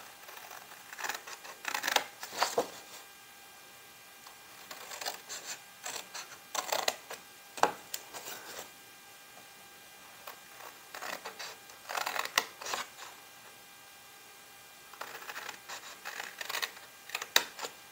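Small craft scissors snipping through red cardstock in several short runs of quick cuts, with pauses between the runs.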